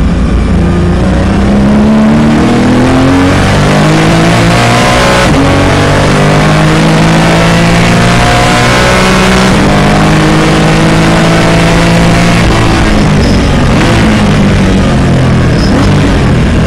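Porsche Cayman engine heard from inside the cockpit, accelerating hard through the gears: the revs climb, drop back at an upshift about five seconds in and again about nine and a half seconds in, then level off and fall as the car slows near the end, over steady road and wind noise.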